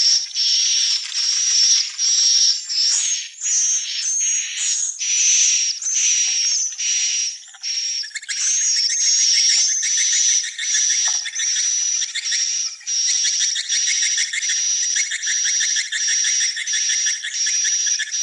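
Swiftlets calling: a steady series of high, buzzy chirps about two a second. From about eight seconds in the chirps crowd closer together, with a lower, fast clicking twitter beneath them.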